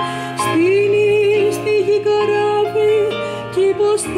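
Live band performance: a woman singing long, wavering held notes over sustained keyboard chords.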